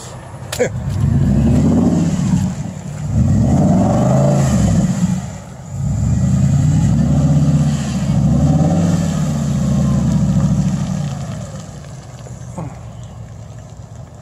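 Ford F-150 pickup's engine revving in four rising-and-falling surges as the truck works through mud ruts, then easing off near the end.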